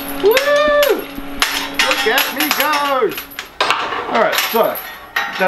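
Steel chains and the flat-steel engine leveler clinking and clanking as they are handled, with several squeaky tones that rise and fall in pitch.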